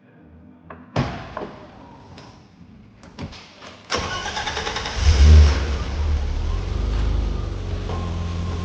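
BMW M20 straight-six engine being started: a clunk and a few clicks, then the starter cranks about four seconds in. The engine catches a second later with a brief rise in revs and settles into a steady idle.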